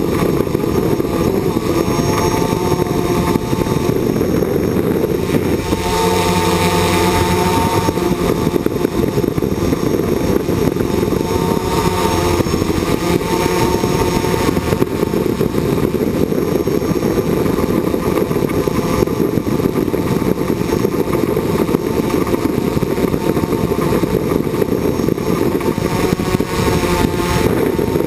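Multirotor drone's electric motors and propellers whirring steadily, heard from a camera on the drone, with a rushing low noise under a whine that wavers up and down in pitch as the motors change speed.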